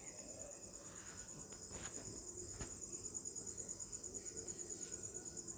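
Faint, steady high-pitched trill of a chirping cricket, pulsing rapidly and evenly, with a couple of faint ticks in the background.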